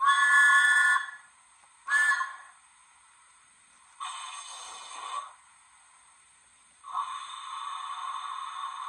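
A model locomotive's LokSound V5 sound decoder plays recordings of a London Underground battery locomotive through its small speaker. Two short tonal blasts come near the start. Then the air brake applies with a hiss about a second long, about four seconds in, and releases with a longer hiss from about seven seconds in.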